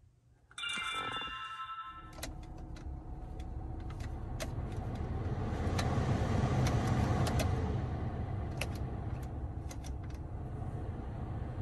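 Inside a Toyota Camry: a brief tone from the dashboard about half a second in, then the car running with a steady low rumble that swells towards the middle and eases later, with scattered light clicks.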